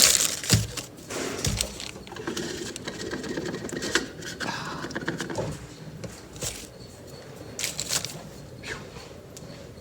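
Scattered light clicks, taps and soft scraping of hands handling oil filter parts: the new filter and its gasket going into the filter housing.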